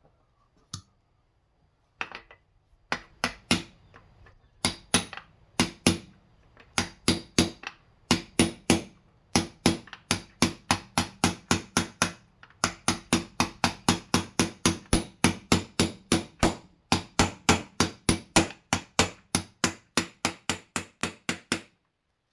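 Hammer tapping on a socket held on a 6905-2RS sealed ball bearing, driving the bearing into a heated wheel hub. A long run of sharp taps, a few scattered at first, then steadily about three a second, stopping just before the end.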